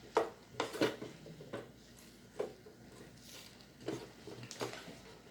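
A utensil knocking and scraping against a pan while vegetables are stirred, with about seven irregular clicks and knocks.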